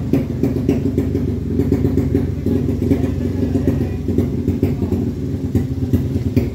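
A 200cc motorcycle engine idling steadily, with a rapid, even firing beat.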